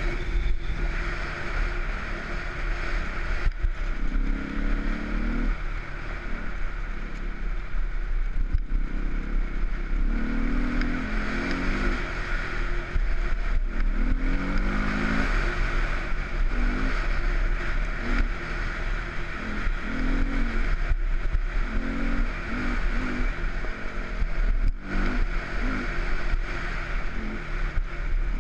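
Enduro motorcycle engine running, revving up in short bursts again and again between steadier stretches, under a constant rumble and rush of ride noise.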